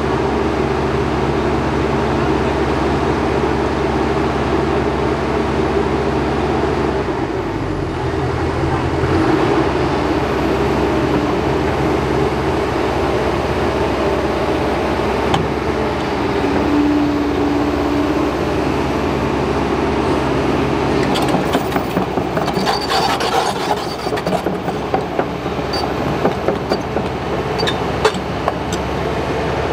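Diesel engine of heavy earthmoving machinery running steadily, its tone changing about a quarter of the way in. In the last third comes a string of sharp clanks and knocks.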